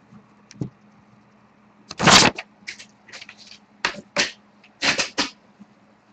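A scatter of sharp clicks and knocks from objects being handled on a tabletop, with one louder knock about two seconds in and several quicker pairs after it, over a faint steady hum.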